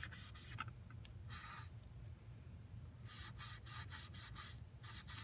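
Baby wipe rubbed over glossy poster board to wipe off wet glue, in quick faint rubbing strokes. There are two runs of strokes with a short pause between them.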